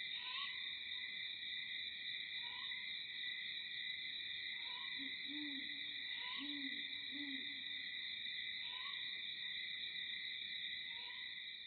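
A steady, high insect chorus drones without a break, with short bird chirps every couple of seconds. Three low hooting calls come in around the middle.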